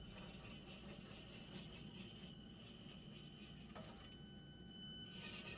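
Very faint whine of a micro RC crawler's small electric motor and gears working slowly over the course, with a few soft clicks.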